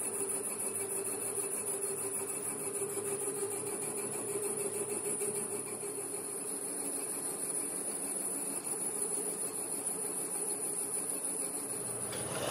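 Steady hum of workshop machinery with a thin high-pitched whine over it.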